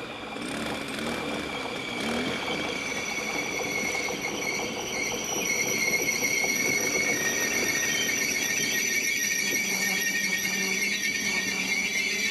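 Regional passenger train braking into a station: a steady, shrill brake squeal made of several high tones, growing louder as the train draws alongside, with a lower hum joining in near the end.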